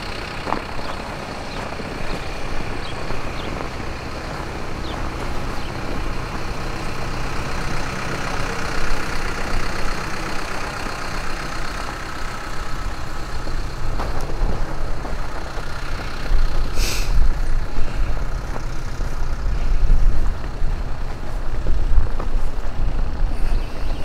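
Heavy diesel engine of a front-end loader running, growing louder in the second half, with one short hiss about seventeen seconds in.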